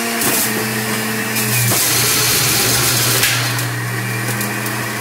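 PowerXL self-cleaning centrifugal juicer running loud with a steady motor hum while carrots are pressed down the feed chute. A coarse grinding noise swells from about a second in to past three seconds as a carrot is shredded, then eases back.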